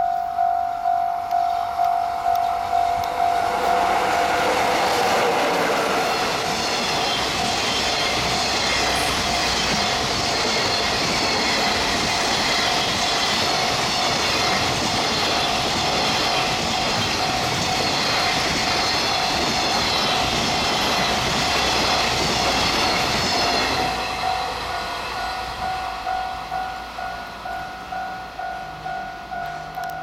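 Level-crossing alarm bell ringing in a steady pulse while an EF66 electric locomotive and a long container freight train pass at speed, the wagons rumbling and clacking over the rail joints. The train noise builds a few seconds in, holds, and dies away about six seconds before the end, leaving the crossing bell ringing.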